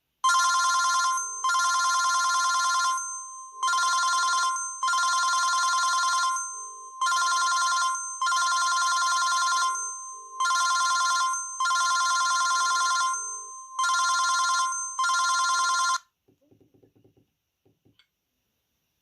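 VK530 mobile phone playing a trilling, bell-like electronic ringtone through its loudspeaker, in five pairs of a short ring followed by a longer ring, stopping about three seconds before the end.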